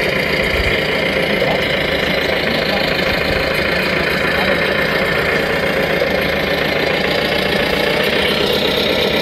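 Radio-controlled scale truck running steadily as it crawls slowly over rocks, an even engine-like drone with no pauses.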